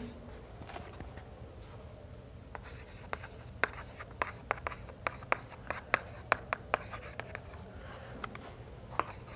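Chalk writing on a chalkboard: a run of sharp taps and short scratches as the chalk strikes and drags across the board, starting about two seconds in.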